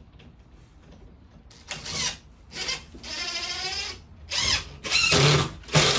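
Cordless drill driving screws through plywood subfloor sheathing into a joist. The motor runs in a series of short bursts starting about a second and a half in, with one steadier run of about a second in the middle.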